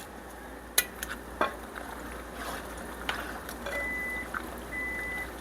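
A utensil knocks a few times against a pan and stirs through thick, creamy pasta sauce. Near the end a high electronic beep starts, sounding twice, each about half a second long and about once a second.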